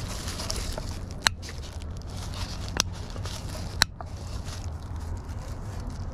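Clear plastic wrapping on a souvenir cup crinkling as it is handled and turned over, with three sharp clicks.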